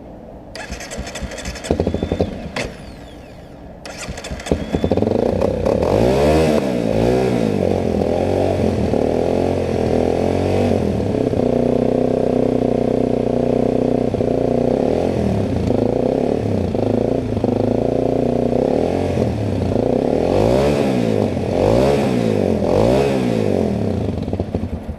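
Honda CRF250L single-cylinder engine being started, catching about four to five seconds in after some cranking, then revved up and down over and over with a steadier stretch in the middle. The bike is being brought back to life after a roadside breakdown.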